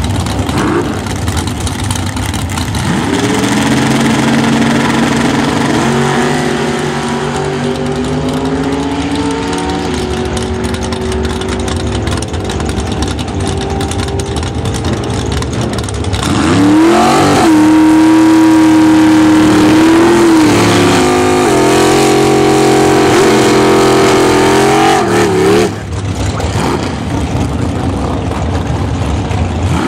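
A drag car's engine pulls away hard down the strip, its pitch climbing in steps through the gear changes. About sixteen seconds in comes the loudest part: another drag car's engine is revved high and held for a burnout, then cut off sharply about nine seconds later.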